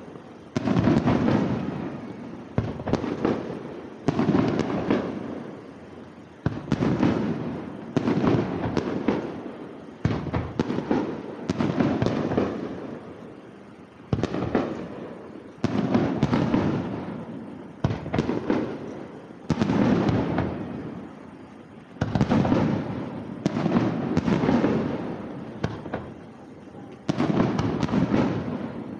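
Fireworks shells bursting in quick succession, a sharp bang every second or two, each dying away in a long echo. Louder bursts land every few seconds.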